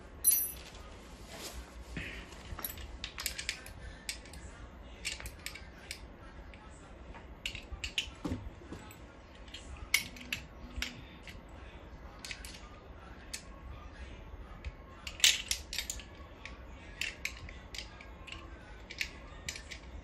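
Scattered clicks and taps of a hex key and the parts of a steel monitor arm being handled and fitted, with a sharp click just after the start and another about three-quarters of the way through.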